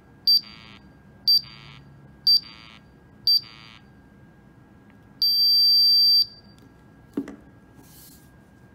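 mPower MUNI 4-gas monitor's shutdown countdown: four short high beeps, one a second, each followed by a brief buzz, then one long beep of about a second as the unit switches off. A single click follows.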